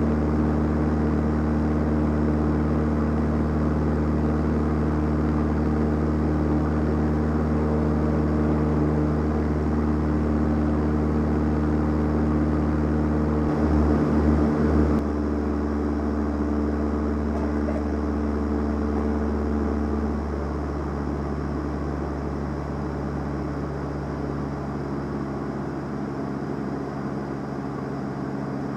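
Van's RV-7A's piston engine and propeller running steadily in flight, heard from inside the cockpit as a loud, even drone. Midway it swells briefly and changes pitch, then drops slightly and changes again about two-thirds of the way through.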